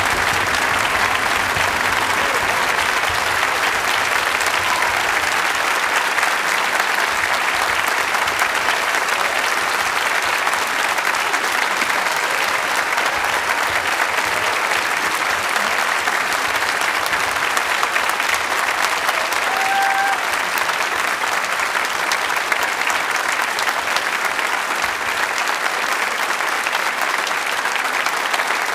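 Large concert audience and orchestra members applauding steadily, a dense even clapping that holds at the same level throughout.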